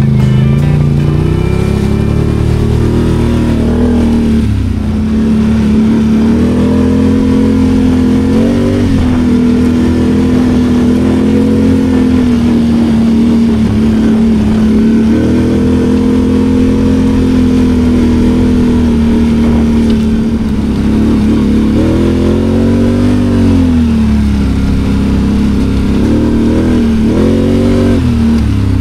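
2024 Can-Am Outlander 850 XMR ATV's V-twin engine running under way, its pitch holding steady for stretches, then rising and falling with the throttle and dropping briefly several times.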